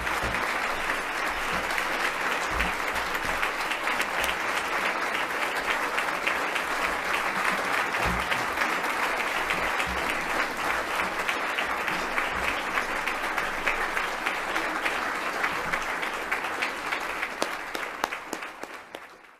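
Audience applauding steadily, many hands clapping at once, fading out near the end.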